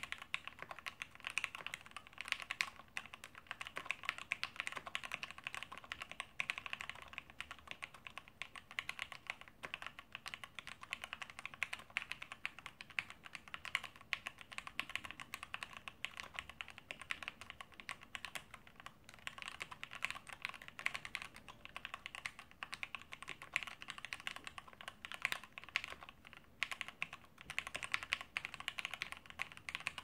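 Steady fast typing on an LZ-IRON WK mechanical keyboard fitted with lubed Cherry MX Vintage Black linear switches, 55 g springs and a stainless steel plate: many key strokes a second, without pause.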